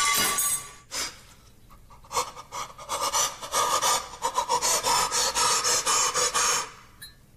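A brief loud noise right at the start. From about two seconds in until near the end comes a fast run of rasping, scraping strokes: a hand rubbing and smearing mashed food across a countertop.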